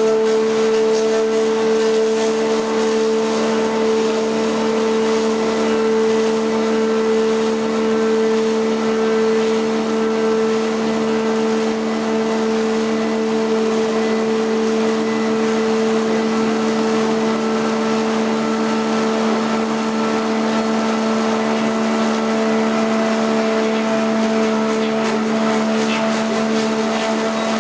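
KBM-200 log-rounding machine running: a steady mid-pitched machine whine with overtones over a constant rushing noise, unchanging throughout.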